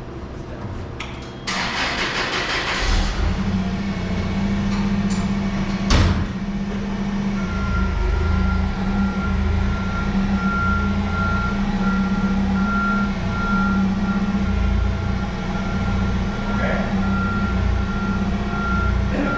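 A truck engine cranks and starts about a second and a half in, then idles steadily. A door slams about six seconds in. From about seven seconds a high reversing alarm beeps on and off.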